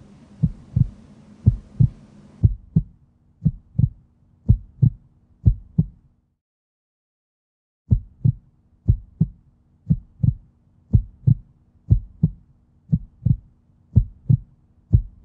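Heartbeat sound effect: low double thumps, lub-dub, about one beat a second over a faint low hum. The beat stops for about two seconds in the middle, then starts again.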